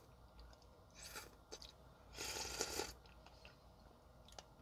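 Close, faint eating sounds: vegetable soup sipped from a wooden spoon and chewed, a short burst about a second in and a longer, louder one just after two seconds.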